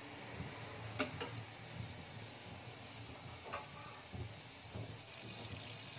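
Modaks deep-frying in oil in a pan, a soft steady sizzle, with a couple of light clicks of a spoon against the pan about a second in and another past the middle.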